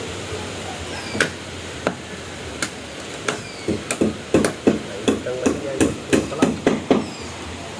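Hammer driving nails into a wooden roof frame: a few single blows spaced apart, then a quick run of strikes at about three a second in the second half.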